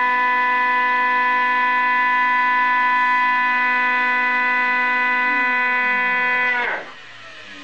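Fritsch Pulverisette 19 cutting mill and its cyclone extraction vacuum running with a steady, many-toned whine, then switched off one after the other at the end of a blind-sample cleaning run. One lower tone starts falling about five seconds in, and near the end the whole whine drops steeply in pitch and level as the motors spin down.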